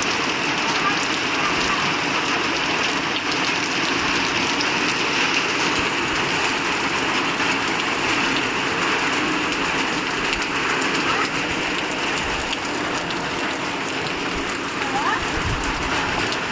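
Heavy rain falling steadily, a constant hiss of rain on the ground and surfaces.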